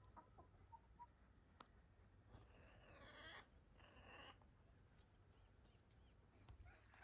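Near silence with two faint bird calls around the middle, a longer one followed by a shorter one.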